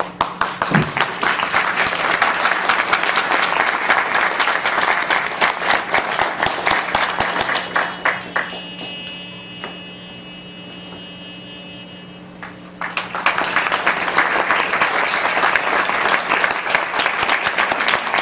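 Crowd of guests applauding in a hall, in two long rounds with a quieter lull of a few seconds in between.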